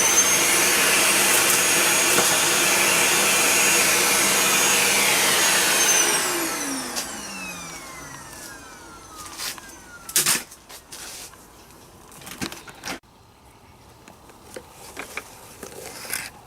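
Household vacuum cleaner starting up and running steadily for about six seconds, then switched off and winding down with a falling whine. A few sharp knocks follow.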